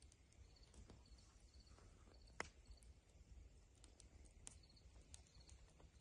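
Faint night-time outdoor quiet with insects chirping steadily, short triple pulses about twice a second. A few sharp snaps or cracks break through, the loudest about two and a half seconds in.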